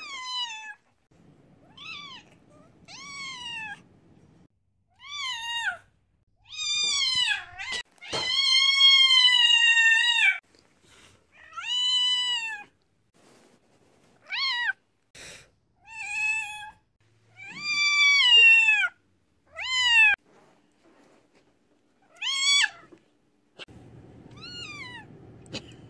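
A deaf cat meowing loudly and over and over, about a dozen calls with some short and one drawn out for over two seconds. These are excited attention-seeking calls from a fully deaf cat.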